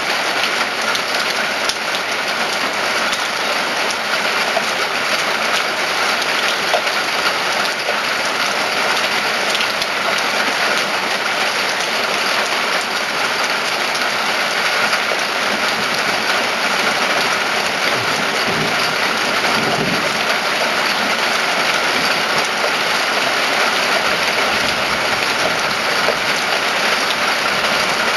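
Rain falling steadily, an even hiss of drops hitting surfaces, with a faint low rumble briefly about two-thirds of the way through.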